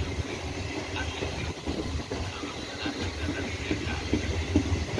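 Passenger coaches of a regional train rolling past on the track, the wheels clicking irregularly over the rails above a steady low rumble.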